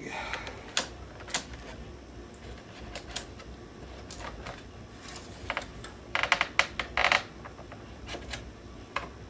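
Light clicks and taps of thin wooden sticks and gussets knocking against the blocks of a wooden rib jig as a glued wing rib is worked loose from it, with a quick run of sharper clicks a little after six seconds in.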